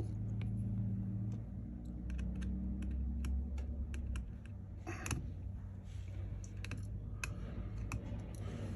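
Light, irregular clicks and taps of small precision repair tools on the internal parts of an opened iPhone, with one louder click about five seconds in and a steady low hum underneath.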